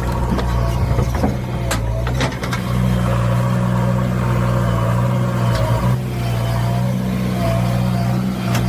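Engine of a JCB-type excavator or backhoe running steadily under a low hum, with several sharp knocks and clanks and a few short squeals.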